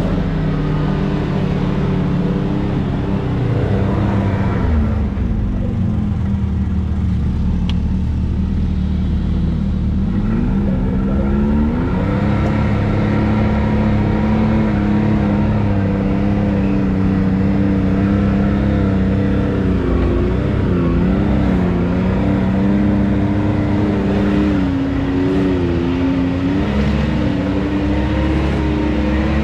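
Side-by-side UTV engine running steadily under way on a trail, heard from on board. Its pitch drops off about five seconds in and climbs back near eleven seconds, with smaller ups and downs of throttle later on.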